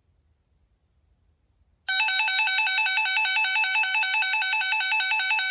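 RadioShack 12-247A weather radio's electronic alert siren coming on suddenly about two seconds in: a loud warbling tone switching rapidly back and forth between two pitches, played through the radio's damaged speaker.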